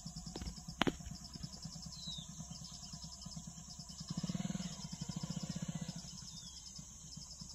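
Roadside ambience: insects buzzing in a steady, pulsing high drone, with birds chirping now and then. A low rhythmic throb runs underneath and swells about four seconds in, and a single sharp click comes about a second in.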